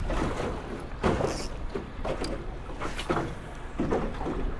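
Small waves slapping and sloshing against the hull of an aluminum fishing boat, about once a second, with wind rumbling on the microphone.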